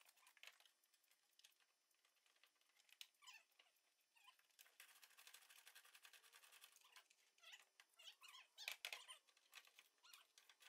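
Near silence: faint outdoor background with a few faint chirps and scattered light clicks, the loudest cluster of clicks about nine seconds in.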